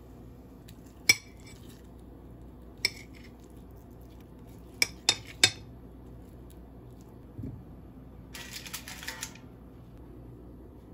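Dishes and cutlery clinking: one sharp clink about a second in, another near three seconds, three quick clinks around five seconds, then a short clatter near nine seconds.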